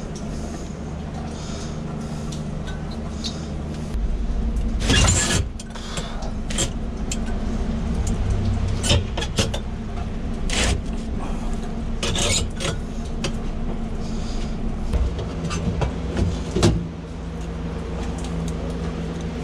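Clicks, knocks and clatter of wiring connectors and metal panels being handled inside a vending machine's lower compartment, over a steady low machine hum that gets louder about four seconds in.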